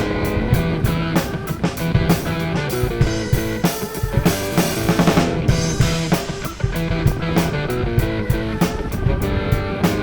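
Background music: a rock track with guitar and a steady drum-kit beat.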